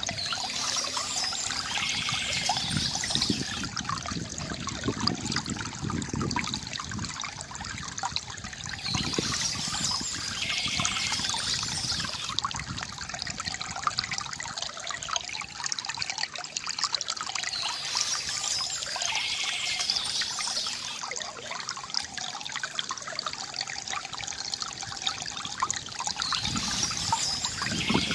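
Water trickling and pouring steadily from a bamboo fountain spout into its basin, with a continuous gurgle.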